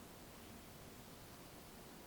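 Near silence: a faint, steady hiss with no distinct sound.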